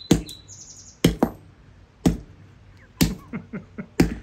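Hammer striking hard about once a second, with a few quicker, lighter blows near the end, smashing open a small battery.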